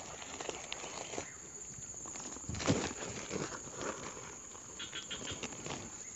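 Woven plastic sack rustling and crinkling as it is handled, with irregular rustles and small knocks, the loudest a little under three seconds in.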